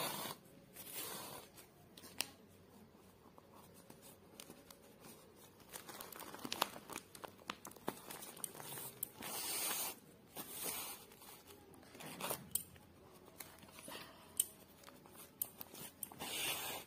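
Yarn being drawn with a needle through a woven plastic sack: irregular scratchy swishes as the yarn pulls through, with crinkling of the plastic and a few small clicks.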